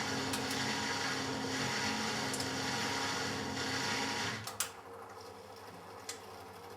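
Matura Autostatic 850 washing machine running with a steady motor hum, then cutting out about four seconds in with a sharp click. A quieter hum and a second click follow.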